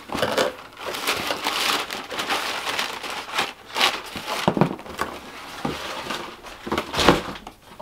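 Tissue paper crinkling and rustling as it is handled and pulled from a boot box, in uneven rustles with a few sharper crackles.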